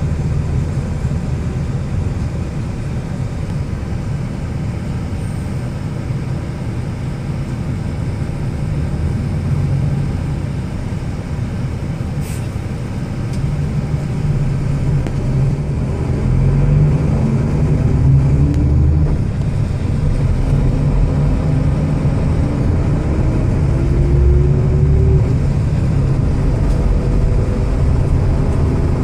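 Car engine and road noise heard from inside a moving car: a steady low rumble that grows louder about halfway through, with the engine note rising several times as the car accelerates.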